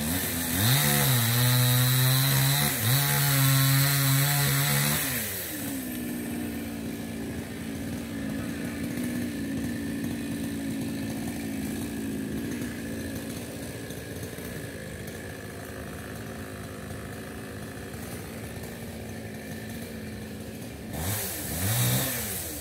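A small engine revs high and steady for about four seconds, then drops back and runs lower, fading over the next ten seconds.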